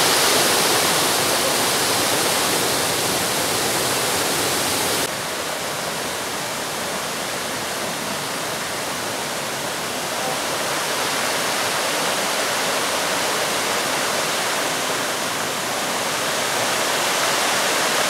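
Water rushing over rock from small waterfalls and cascades, a steady dense rush of noise. About five seconds in it changes abruptly to a slightly quieter, less hissy rush.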